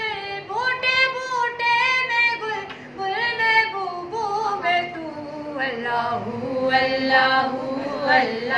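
A woman singing an Urdu hamd, a hymn in praise of God, in a solo voice: long held notes that slide and turn between pitches, with no clear words.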